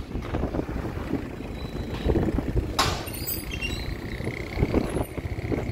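Street traffic noise with a low, uneven rumble, and one sharp click near the middle.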